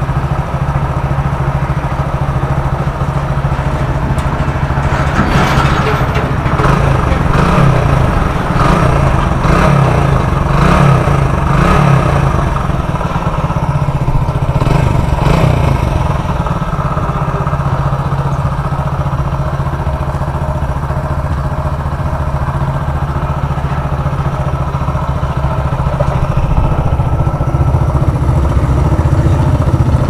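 Hero Honda Splendor Plus single-cylinder four-stroke motorcycle engine running after a rebuild with crank repair and new piston rings. It idles steadily, is revved up and down several times from about 5 to 16 seconds in, then settles back to idle. It sounds normal, without the heavy rattle it had before the repair.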